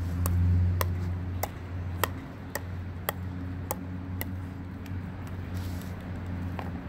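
Pickleball dink rally: the hard plastic ball being tapped by paddles and bouncing on the asphalt court, a sharp click about every half second, eight in all, until the point ends about four seconds in. A steady low hum runs underneath.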